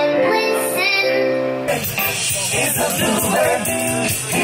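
Pop music with singing. A little under two seconds in, the sound cuts abruptly from a clean sung melody to a noisier, denser mix of music and singing.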